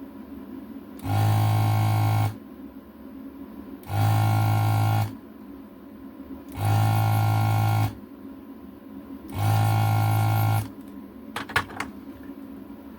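Desoldering tool's vacuum pump buzzing in four bursts of just over a second each, about every two and a half seconds, as solder is sucked off the LCD's pins. A few faint clicks near the end.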